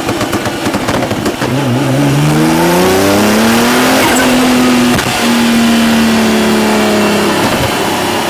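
Stage 4.25 tuned Nissan GT-R R35's twin-turbo V6 accelerating: after a rough, choppy start the revs climb steadily for about two seconds, break briefly twice around the middle, hold a steady note, then drop away near the end.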